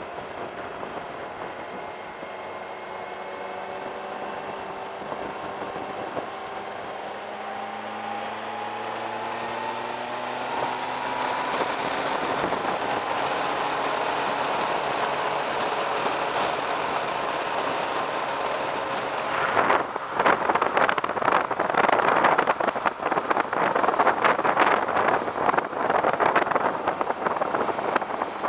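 Suzuki Bandit 1250's inline-four engine pulling steadily, its pitch rising slowly for about the first twelve seconds and then holding level. About two-thirds of the way through, loud gusty wind buffeting on the microphone covers the engine.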